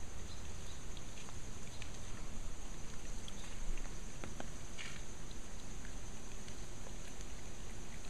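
Water spouting from a cracked retaining wall after typhoon rain and splashing down, a steady rush of water with scattered drips.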